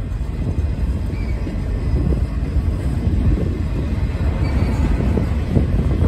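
Freight train boxcars rolling past: a steady low rumble and clatter of steel wheels on rail, growing a little louder toward the end.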